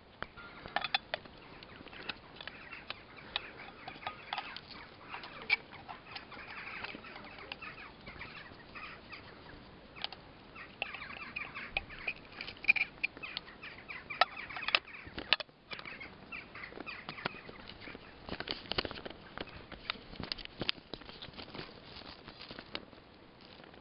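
Repeated clicks, knocks and rustles from handling a plastic-and-stainless-steel solar garden stake light in long grass, with birds calling in the background.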